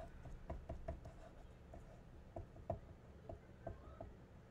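Faint, irregular light taps and knocks, a dozen or so, from hands working paper and glue on a tabletop.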